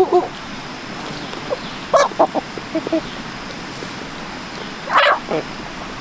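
Short calls from farmyard animals: a cluster of brief yelps about two seconds in and a single louder call about five seconds in, over a steady background hiss.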